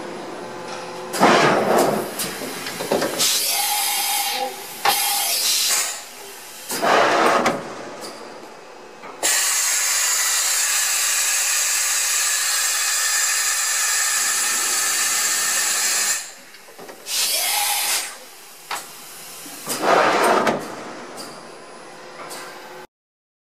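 Deckel Maho DMC 60 U machining centre running through a demonstration: several short loud bursts of machine noise as the spindle head travels, and a long steady hiss in the middle lasting about seven seconds. The sound cuts off suddenly near the end.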